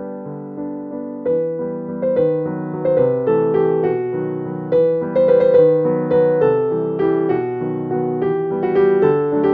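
Background piano music: single notes and chords struck one after another, each fading after it sounds.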